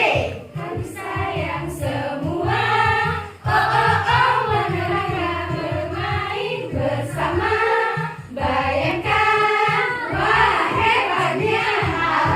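A song sung by several voices together over musical accompaniment, with long held notes.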